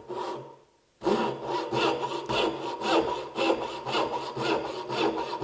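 Dovetail saw (a hand backsaw) cutting into a board clamped in a Moxon vise. A short first stroke, a brief pause, then steady, rapid back-and-forth strokes from about a second in.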